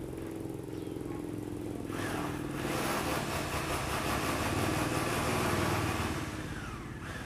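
A small motor vehicle engine running steadily, swelling louder with a broad hiss for a few seconds in the middle before dropping back.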